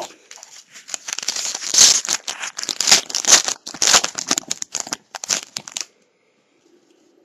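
Foil trading-card pack wrapper being torn open and crinkled: a dense run of crackles and rips for about five seconds, stopping near the end.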